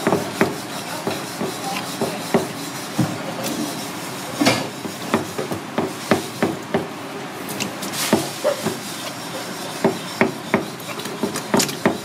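Large kitchen knife chopping sea squirt flesh on a plastic cutting board. The blade knocks on the board irregularly, over steady background noise.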